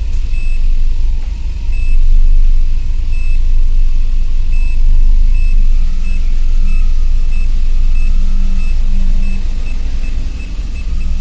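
A reversing parking sensor's buzzer beeping evenly, about one and a half beeps a second, as the Maruti 800 backs toward an obstacle. Under it, a loud, steady low rumble of the car running.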